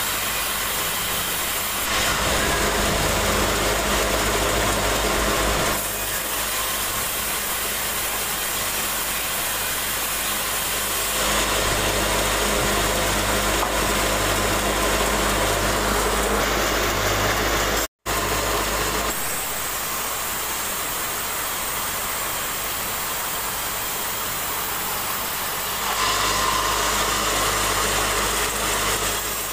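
Band sawmill running and cutting through timber: steady loud machine noise of the blade and motor, its level shifting a few times as the cut changes. The sound breaks off for an instant about eighteen seconds in.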